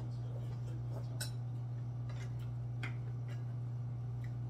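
Eating at a table: a few light, scattered clicks of chopsticks and a spoon against ceramic bowls and plates, over a steady low hum.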